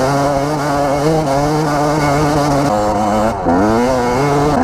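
Dirt bike engine running under load while the bike climbs a trail. Its pitch holds steady, steps down about two-thirds of the way in, dips briefly, then rises again.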